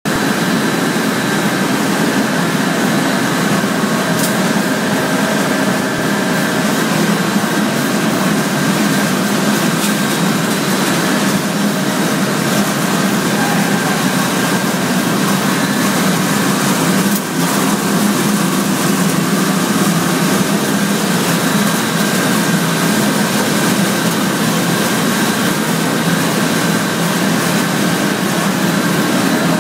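Loud, steady din of a cornflake flaking line running: motors, the flaking-mill rollers and feed machinery, with steady high whines over the noise.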